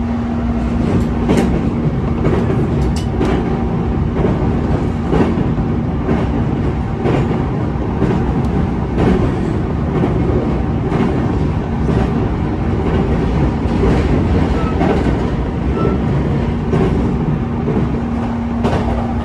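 Running noise inside a JR East E233 series electric commuter train at speed, heard beside the door: a steady rumble of wheels on rail with a clack from a rail joint every second or two, for much of it while running over a river bridge. A steady hum fades away after the start and comes back near the end.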